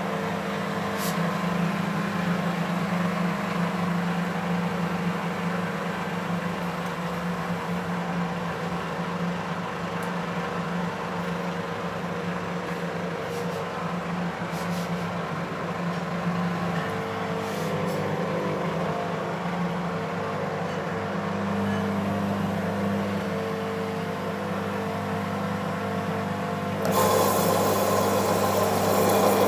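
Beko 5 kg washing machine running with an unbalanced load, its drum motor giving a steady hum whose pitch shifts a little now and then. About 27 seconds in, the running gets louder and noisier.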